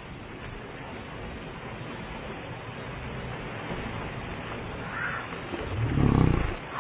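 Slowed-down splash of a jumper entering river water: a steady hiss of spray falling back onto the surface, with a deep, drawn-out low sound swelling near the end.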